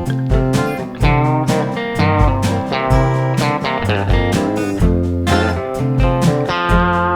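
Instrumental country blues on guitars: a Gibson J-50 acoustic and a Fender Telecaster electric. Picked melody notes play over a steady, evenly repeating bass beat.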